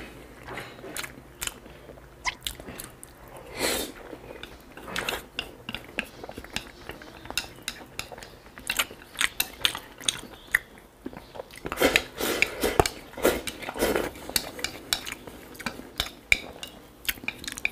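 Close-up eating sounds: chewing, with wooden chopsticks tapping and scraping against a porcelain bowl in many sharp clicks that come thickest over the last several seconds.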